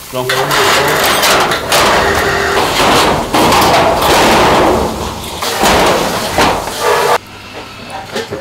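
Corrugated metal sheet dragged and scraped over the concrete rim of a pork-roasting pit oven, rattling and clanging as the pit is covered. The noise stops abruptly about seven seconds in.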